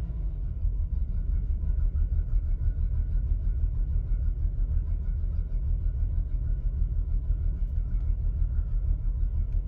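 Ford Falcon BF's dedicated-LPG inline-six engine idling with a low, uneven, pulsing rumble. This is the rough running after a hard start that comes with the car's occasional starting problem.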